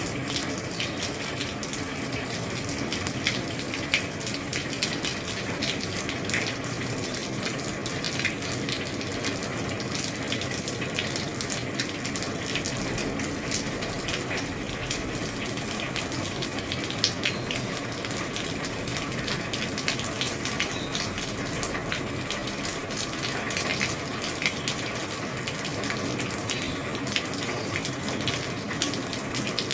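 Steady heavy rain on an old roof: a constant rush of water with many sharp drop ticks scattered through it.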